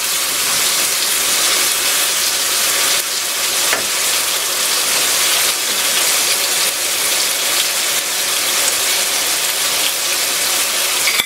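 Chicken pieces frying in a thin sauce in a nonstick wok: a steady sizzle, with a few light strokes of a spatula against the pan.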